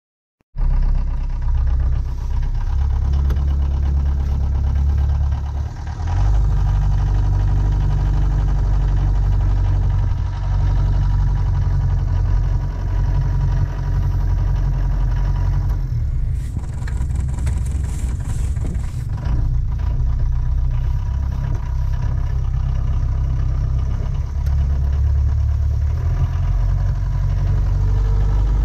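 Austin FX3/FL1 London taxi's diesel engine running as the cab is driven, heard from inside the cab as a steady, heavy low note. It cuts in suddenly about half a second in.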